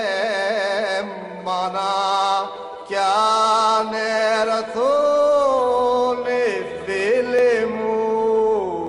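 Byzantine funeral chant: a voice chanting a slow, ornamented melody, with long held notes, over a steady held drone note.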